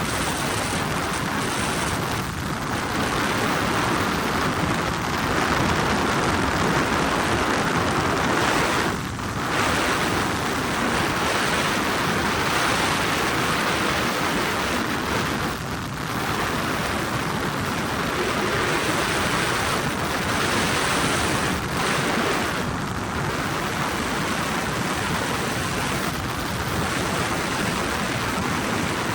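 Helicopter in flight heard from inside the cabin: a loud, steady rushing noise of engine and rotors, dipping briefly twice.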